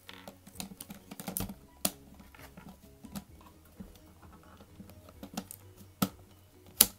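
Clicks, knocks and snaps of a Mamiya RZ67 Pro II medium-format camera being handled as a Polaroid back is fitted to the body. Many small clicks throughout, with a sharp snap about two seconds in and two louder snaps less than a second apart near the end.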